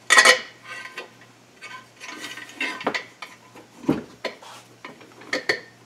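Stainless wire rope and its take-up eye clinking and rattling against a steering radial drive wheel as the eye is threaded through it, with a sharp clank at the start. About four seconds in there is a duller thump as the wheel is laid down flat on a cloth-covered table.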